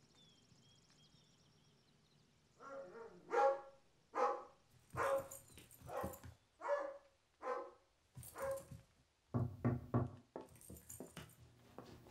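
A dog barking repeatedly, about a dozen barks in an uneven series starting about two and a half seconds in, as at a visitor at the door.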